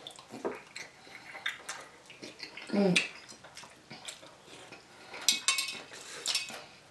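Eating sounds: a metal fork clinking and scraping against the dishes while soft dumplings are chewed, with a quick run of clinks about five seconds in. A short voiced "mm" about three seconds in.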